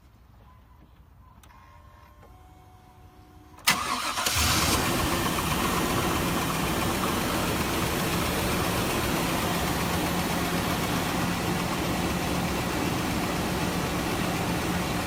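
Truck engine starting about three and a half seconds in: a short crank, it catches with a brief flare, then settles into a steady idle. The engine has a spun number-one rod bearing from running low on oil, with rod knock and lifter tick, but the knock is pretty quiet this time.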